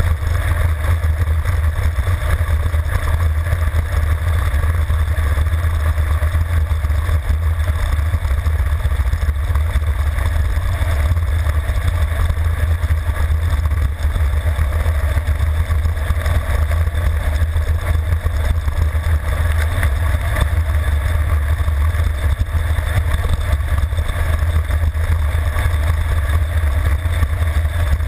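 Wind blasting the microphone of a handlebar-mounted camera on a road bike descending at high speed: a loud, steady low rumble.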